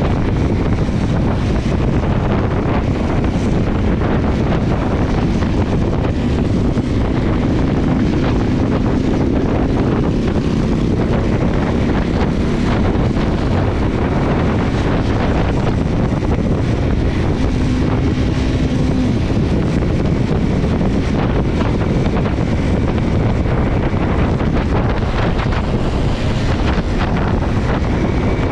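Steady wind rush on the microphone of a motorcycle riding at road speed, with the bike's engine running underneath; a faint engine hum shows through now and then.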